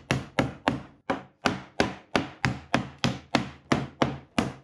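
Claw hammer driving nails into wooden floorboards. The strikes are rapid and even, about four or five a second, each a sharp knock with a short ring, with a brief break about a second in.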